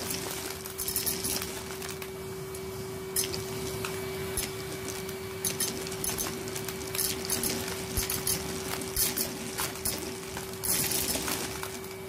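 Numatic Hetty vacuum cleaner running with a steady hum while brass drawing pins are sucked up through its metal wand, clinking and rattling as they shoot through the tube. The clatter comes in bursts, with a dense run of pins near the end.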